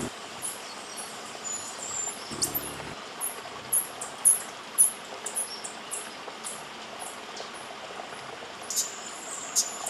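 Hummingbirds' short, sharp, very high-pitched chips, repeated irregularly several times a second over a steady hiss of background noise.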